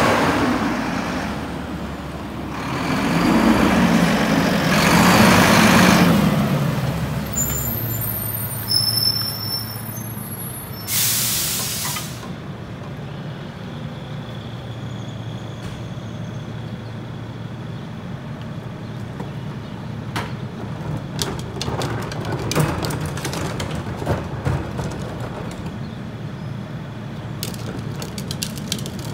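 Mack LR rear-loader garbage truck's diesel engine running and pulling up, building to a peak a few seconds in. A few short high brake squeaks follow, then a loud hiss of the air brakes about eleven seconds in. The engine then idles steadily while a plastic trash cart rattles and knocks as it is wheeled to the truck near the end.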